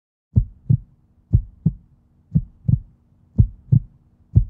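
Heartbeat sound effect: pairs of short low thumps, lub-dub, about one beat a second, over a faint steady hum.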